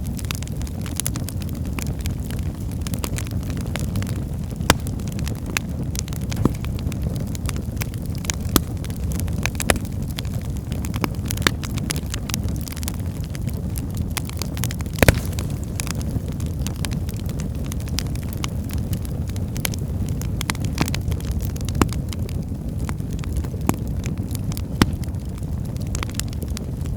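Wood fire burning in a fireplace: a steady low rumble of flames with scattered sharp crackles and pops from the burning firewood, the loudest pop a little past halfway.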